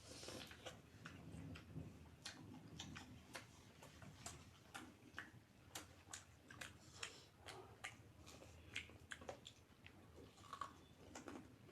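Faint, irregular mouth clicks and smacks of someone chewing food close to the microphone, a few a second.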